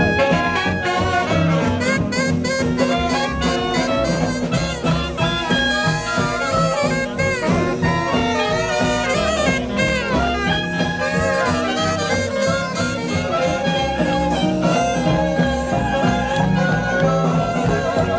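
Live swing jazz band playing an instrumental passage with horns (trumpet and saxophone) over a steady bouncing beat.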